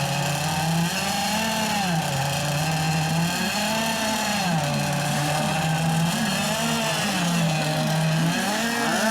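Several radio-controlled model boat engines running together, small two-stroke engines whose pitch keeps rising and falling and overlapping as the throttles are opened and eased.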